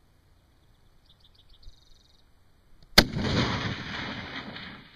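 A single rifle shot from a Ruger M77 VT in .243 Winchester about three seconds in, with a loud echo that trails away over about two seconds.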